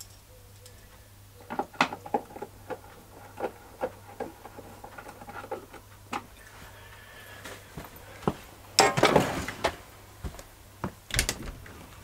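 Scattered light knocks and clicks of hard objects being handled and moved, with a louder scuffling clatter about nine seconds in.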